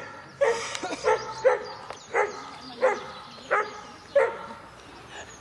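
A dog barking repeatedly: about seven short barks, evenly spaced at roughly two-thirds of a second apart.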